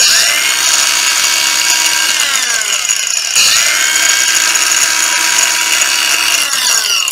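Hitachi G14DSL 14.4 V cordless angle grinder running unloaded with a high motor whine: it spins up at once, starts winding down after about two seconds, is switched on again just after three seconds, and winds down again near the end. The seller calls it smooth-running.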